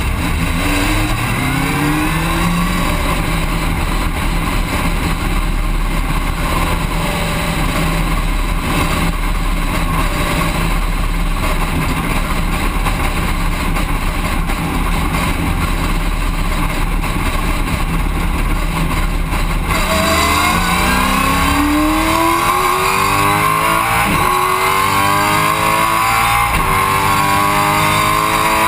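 V8 Supercar's 5.0-litre V8 heard from inside the cockpit. The revs rise briefly, then the engine holds a steady note at low speed. About twenty seconds in it accelerates hard, the revs climbing and dropping back with several quick upshifts.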